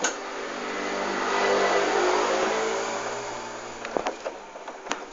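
A motor vehicle passes by: its engine noise swells to a peak about two seconds in, then fades away. A few sharp clicks follow near the end.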